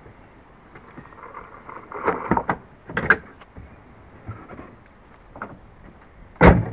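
A few scattered knocks and clicks, then one loud thump near the end.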